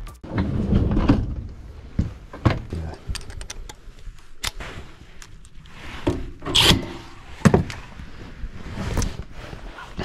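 Scattered knocks, clicks and rubbing from tools and equipment being handled, with a few sharper thunks spread through.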